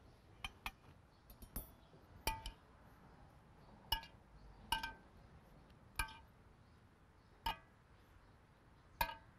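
Sharp, ringing clinks of a utensil against a glazed ceramic serving bowl: about ten separate strikes at uneven intervals, each with a short bell-like ring.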